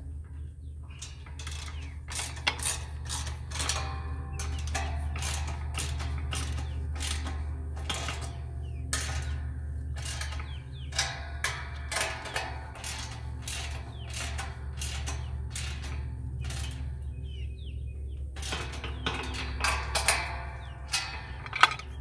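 Socket ratchet wrench clicking in runs of quick strokes as it turns a bolt on a steel gate latch, with a couple of short pauses.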